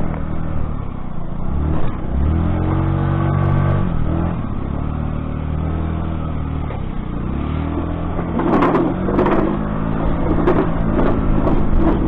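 Small Yamaha Vino moped scooter engine running under way, its pitch rising and falling several times as the throttle opens and eases. From about eight seconds in, a quick irregular run of sharp knocks or rattles joins the engine.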